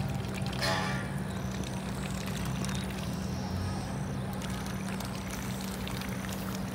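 A steady low engine hum, with one short duck quack just under a second in.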